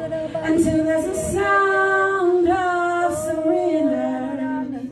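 A woman singing long, held notes, her pitch stepping up about a second in and falling back in steps toward the end.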